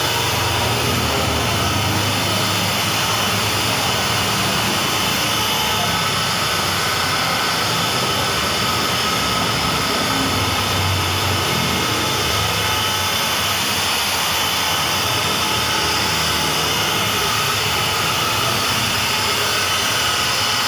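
Electric rotary car polisher running steadily at constant speed, its foam pad buffing car paint, a continuous motor whine over a rushing noise.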